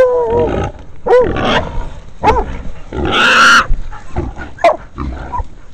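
Hunting dogs, catahoulas and pit bulldogs, barking in short sharp barks about once a second at a wild hog they have caught. The hog lets out one long, harsh squeal about three seconds in.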